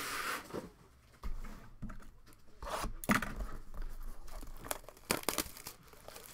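Plastic shrink-wrap being torn off a trading-card hobby box and crinkled. A dense tearing rip stops just after the start, followed by scattered short crackles and rustles.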